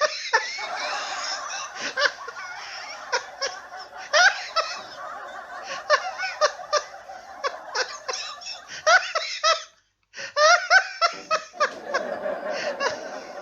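A man laughing heartily over an audience laughing together. It breaks off completely for about half a second around ten seconds in, then starts again.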